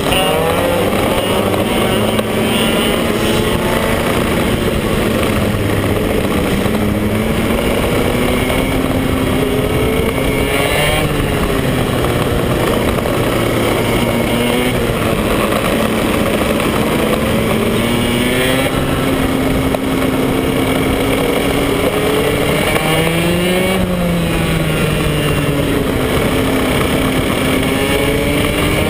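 BMB KF2 125cc two-stroke kart engine heard onboard a Birel R30 kart at race speed, revs climbing on the straights and dropping back into the corners, several times over.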